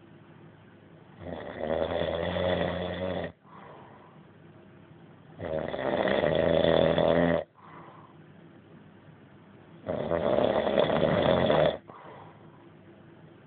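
A sleeping man snoring: three loud, drawn-out snores of about two seconds each, coming roughly every four seconds, with much quieter breathing between them.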